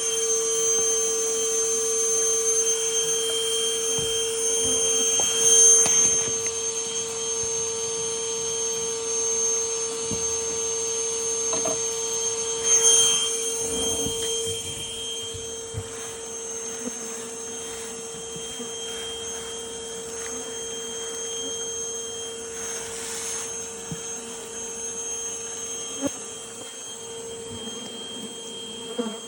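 Vacuum running steadily with a high motor whine, sucking up honeybees from a removed hive. The whine holds one pitch, with brief louder rushes about six and thirteen seconds in.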